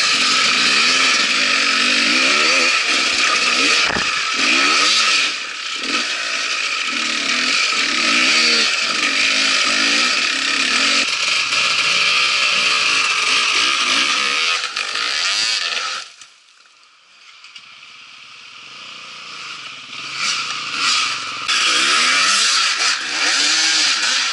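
Dirt bike engine revving up and down over rough trail close to the microphone, with a single knock about four seconds in. The engine sound drops away suddenly around sixteen seconds. After a short lull, another dirt bike revs hard as it climbs a rock step.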